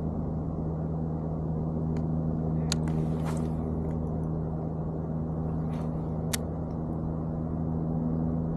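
A steady low hum underlies the handling of a spinning rod and reel: a few sharp clicks, and a brief swish about three seconds in as the rod is cast.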